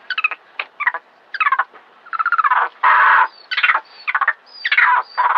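A monkey shrieking in a rapid series of short, sharp calls, most sliding down in pitch, with one longer, harsher scream about three seconds in. These are distress cries, given as a snake seizes it.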